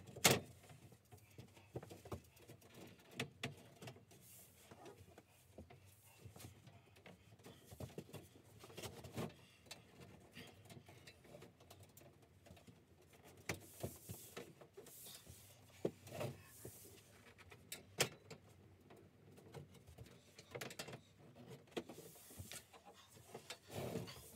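Sparse knocks, clicks and handling rustles from a steel-framed shelving workbench and its MDF shelf boards being fitted together by hand; the loudest knock comes right at the start.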